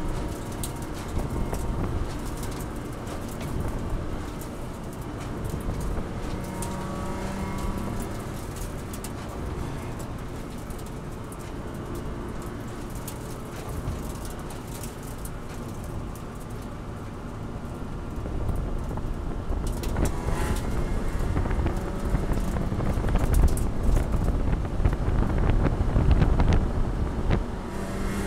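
Race car engine heard from inside the caged cabin, running steadily at moderate revs in third gear at low speed, with rattles and clicks throughout. It gets louder about two-thirds of the way in as the throttle opens.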